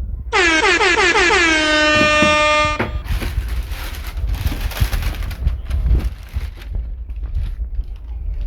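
A horn blast about two and a half seconds long that dips slightly in pitch as it starts, then holds one steady tone and cuts off. Low rumbling background noise with scattered clicks follows.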